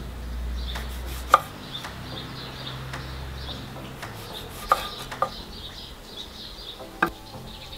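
A cleaver slicing a tomato into wedges on a wooden chopping board. The blade knocks sharply on the wood four times, spread across a few seconds.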